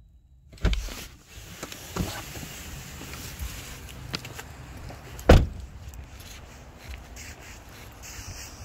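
A few sharp thumps over a steady low rumble, the loudest about five seconds in.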